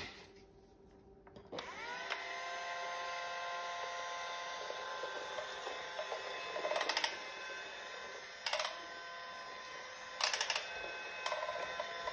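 Battery-powered toy bubble lawn mower switched on with a click: its bubble fan motor spins up with a brief rising whine, then runs with a steady whine. A few short rattles come as the toy is pushed along.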